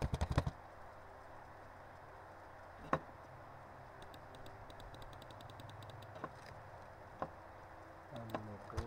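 A quick run of computer keyboard keystrokes at the start, then a few single clicks spaced seconds apart, over a faint steady hum.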